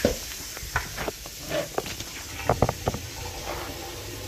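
Steady hiss of running tap water, let run to test a kitchen drain just cleared with a drain snake, with several short light knocks and clicks of handling scattered through it.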